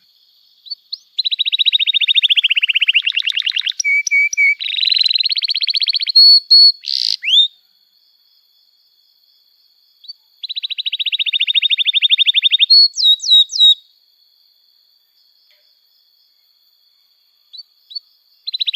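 Domestic canary singing vigorously in phrases: fast rattling trills, short whistled notes and quick rising chirps, broken by silent pauses of about three seconds. A new trill starts right at the end.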